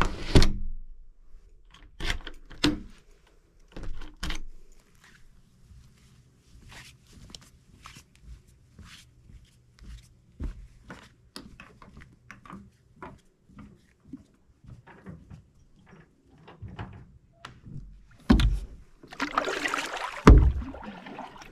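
A cabin door being shut, with several knocks and clunks of the door and its handle, then soft scattered taps of someone walking and handling gear on a wooden dock. Near the end, a paddle splashes through calm lake water in a few strokes.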